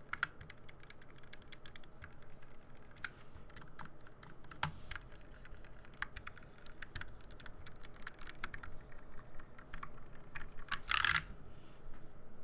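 Typing on a stock Fnatic Streak 65 low-profile 65% mechanical keyboard: irregular keystroke clicks at an uneven pace, with a dense, loudest flurry of strokes about eleven seconds in.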